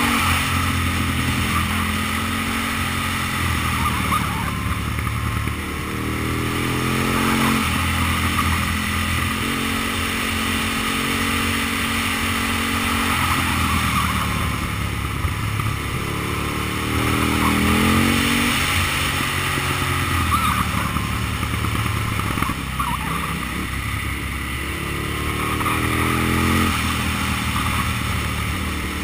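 Aprilia Tuono's 60-degree V-twin engine accelerating and easing off through a series of bends, its pitch rising again and again and then dropping back, with wind rushing over the bike-mounted microphone.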